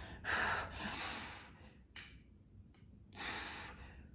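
A woman breathing hard from exertion: two long breaths, one just after the start and one about three seconds in.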